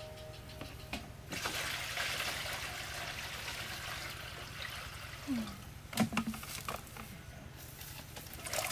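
Water running and splashing steadily, with a few sharp knocks about six seconds in.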